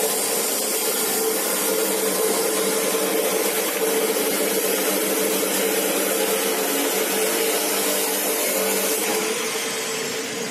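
A motor-driven machine running steadily: a loud, even hiss over a constant hum, easing off slightly near the end.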